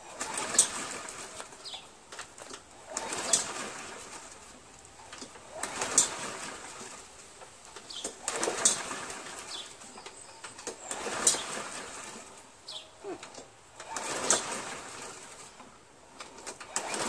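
Honda HRZ216 mower engine being pull-started over and over, the recoil starter rope whirring and the engine cranking about once every two and a half seconds without catching. The owner takes the failure to start for an oil-fouled spark plug after oil leaked out of the engine.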